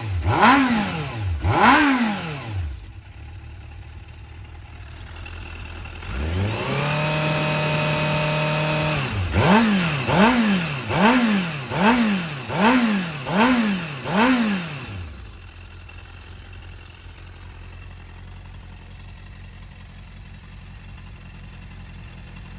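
A Suzuki GSX400S Katana's inline-four engine is blipped twice, then idles. It is held at a steady higher rev for about three seconds, then blipped about seven times in quick succession. After that it settles back to a steady idle, which the seller describes as free of abnormal noise and running well.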